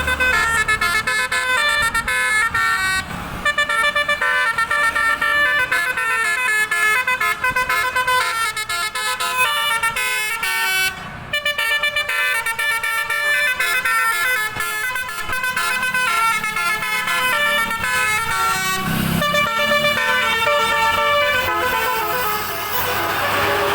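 Basuri, a bus's musical air horn, playing a tune of quick stepped notes with several tones sounding together. There is a short break about eleven seconds in.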